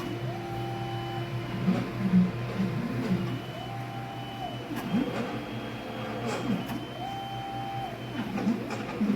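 Stepper motors of a CNC machine drawing, whining in pitch as each axis speeds up, runs at a steady rate, then slows to a stop, one move about every three seconds over a steady low hum, with a few light ticks.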